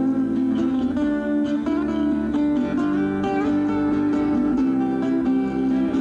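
Amplified acoustic guitar being picked: a run of plucked notes that change every fraction of a second over lower ringing notes.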